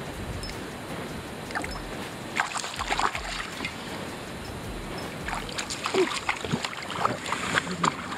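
Water splashing close beside a kayak as a hooked brook trout is played in to the boat. The short splashes come in clusters, one about two and a half seconds in and another from about five and a half seconds on.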